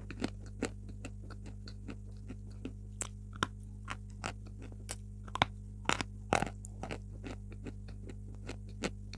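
White chalk being chewed right at the microphone: irregular sharp crunches, about two or three a second, with a louder cluster of crunches past the middle. A steady low electrical hum runs underneath.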